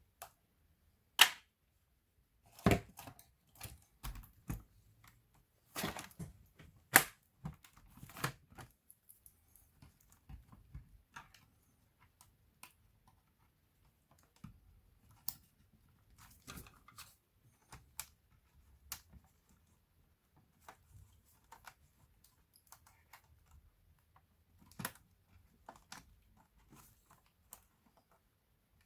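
Irregular clicks and taps of plastic and metal laptop parts being handled and fitted, with sharp knocks about a second in and about seven seconds in, then lighter, sparser ticks.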